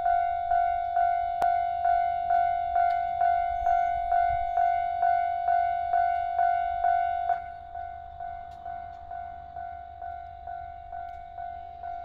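Japanese railway level-crossing warning alarm ringing, a steady ding-ding at about two strikes a second. A little past seven seconds in it becomes clearly quieter but keeps ringing.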